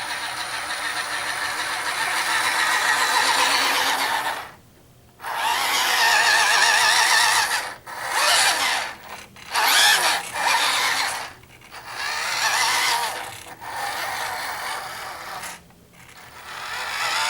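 Small electric motor and gears of a 1/12-scale six-wheel-drive RC military truck whirring as it is driven. The whirr comes in runs that stop and start: the first lasts about four seconds, the rest a second or two each, with short pauses between.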